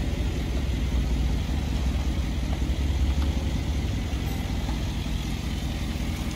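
Mercedes-Benz G 500's V8 engine running steadily at low revs close by, a continuous low rumble.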